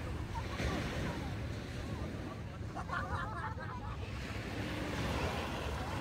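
Small sea waves washing up onto a sandy beach, with wind buffeting the microphone as a steady low rumble. A brief distant voice, a shout or cry, rises over it about three seconds in.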